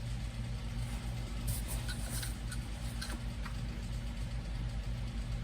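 A steady low hum with a few light clicks and taps as the plastic power window switch unit is handled.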